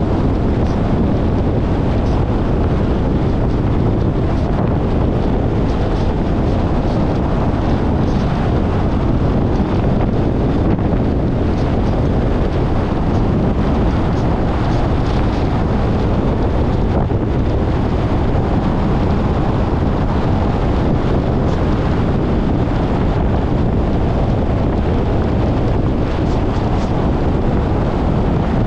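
Steady, loud wind buffeting the microphone: an unbroken rush with a heavy low rumble.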